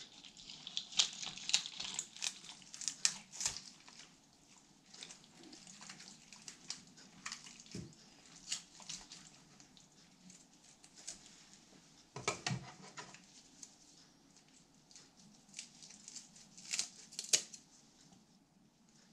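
Kitchen scissors snipping through a corvina's bones and flesh to cut away the collar: a run of irregular snips and clicks, the louder ones in the first few seconds, about twelve seconds in and near the end. The scissors are a little dull.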